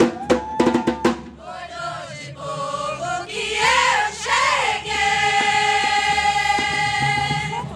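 A quick run of drum strokes from a samba percussion band, then the band's voices singing together, ending on one long held note.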